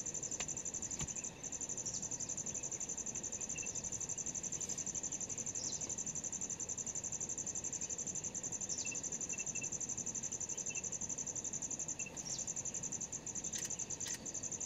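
A steady, high-pitched insect trill, finely pulsed, with a brief break about a second in. A few short, falling bird chirps are heard over it.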